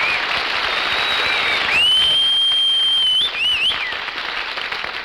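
Studio audience applauding, with whistles from the crowd: a long steady whistle about two seconds in, then short warbling whistles. The applause dies away near the end.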